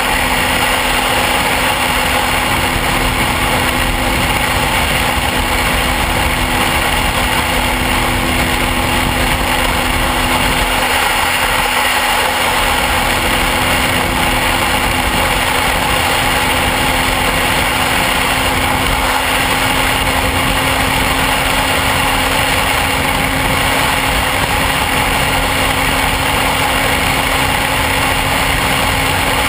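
Motorcycle engine running at a steady cruising speed, its pitch unchanging, under a heavy rush of wind noise on the microphone.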